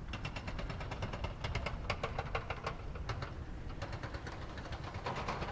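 Rapid, even ticking, about ten ticks a second, in two runs with a short break a little after the middle, over a steady low rumble.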